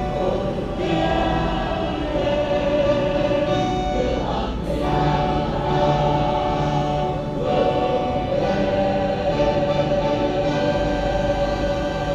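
A group of young women singing together in chorus, holding long sustained notes.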